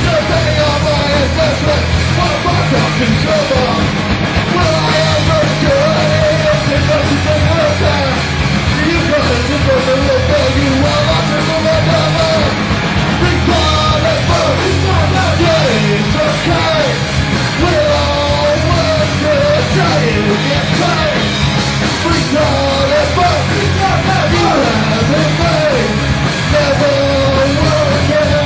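Loud live heavy punk rock band playing: distorted electric guitars, bass and drums, with a vocalist yelling into the microphone.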